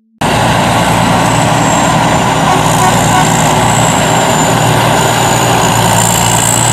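Tracked rice combine harvester running steadily under load as it cuts and threshes, its diesel engine and threshing machinery making a loud continuous drone with a high, slightly wavering whine. It cuts in suddenly just after the start.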